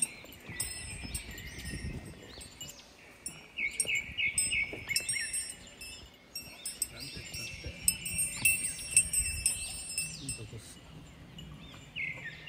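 High, bell-like tinkling that comes and goes in clusters, mixed with quick chirping notes.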